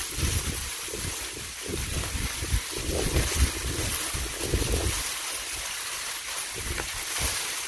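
Wind buffeting the microphone in uneven low rumbling gusts over a steady hiss.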